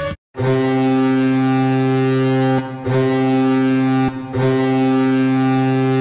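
Colorado Avalanche arena goal horn blowing in three blasts, starting about half a second in and broken twice by short gaps; a steady, low horn chord.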